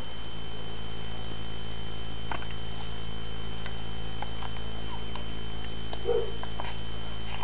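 A baby's single short hiccup about six seconds in, over a steady low hum with a faint high whine and a few soft ticks.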